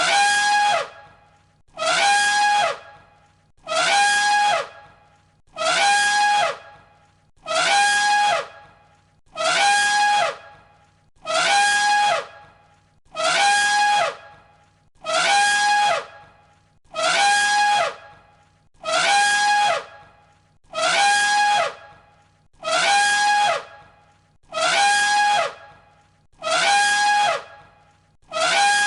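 Elephant trumpet call repeated on a loop: the same short, shrill, falling blast sounds about two times every three seconds.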